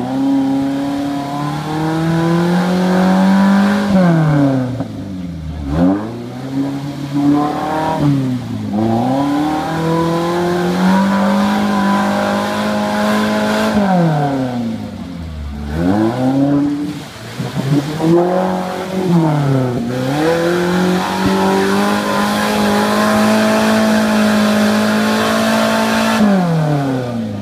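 Small off-road 4x4's engine revved hard again and again as it works through deep mud, its wheels spinning and flinging mud. The revs climb, drop sharply and climb again every second or two, with longer stretches held high.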